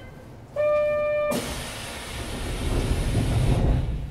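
Inside a Kintetsu 3220-series train car: a short electronic beep, then about a second in a sudden loud hiss of compressed air lasting about two seconds, while a low rumble builds as the train starts to move off.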